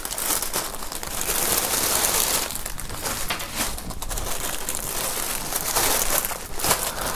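Thin clear plastic bag crinkling and rustling as hands handle it and pull it open, a continuous crackle.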